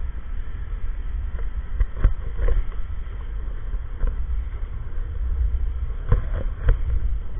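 Low rumble of a running stroller rolling over asphalt, heard from a camera mounted on the stroller, with wind buffeting the microphone. A few sharp knocks and rattles come through now and then.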